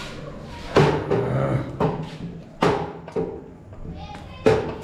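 Four sharp knocks, each ringing briefly, as the welding machine's power cable and plug are handled.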